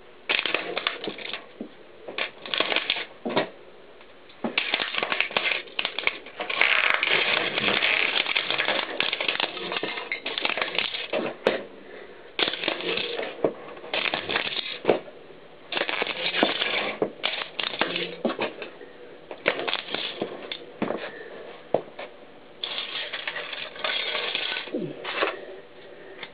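Plastic VHS cassette shells cracking and crunching under a mountain bike's tyre. The sound comes in repeated bursts of crackling, the longest about a quarter of the way in, with sharp single snaps of breaking plastic in between.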